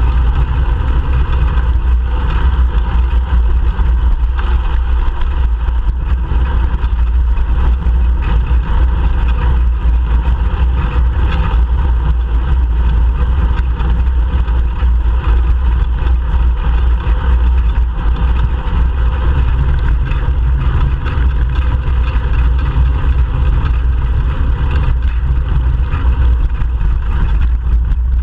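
Steady, loud rumble of wind and road vibration on the microphone of a GoPro Hero 3 Black mounted on a moving bicycle.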